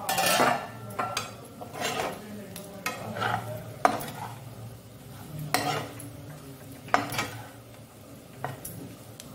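A steel spoon stirring and scraping prawn masala fry around a non-stick frying pan, about seven strokes, two of them ending in a sharp knock on the pan, over a steady sizzle of the frying. It opens with a short loud burst of sizzle as the pan's steel lid comes off.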